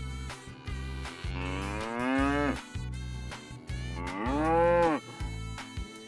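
A cow mooing twice, each moo a long call that rises and then falls in pitch, the first about a second in and the second about four seconds in, over background music with a repeating bass line.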